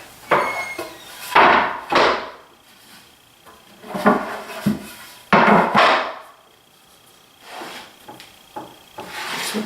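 Wooden panels being handled, set down and shifted on a flat surface while checked for twist: about six separate knocks and scrapes of wood on wood.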